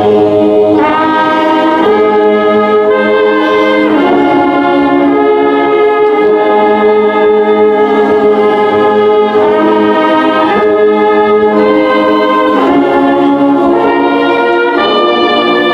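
Brass band playing a slow piece of long held chords that change every second or two.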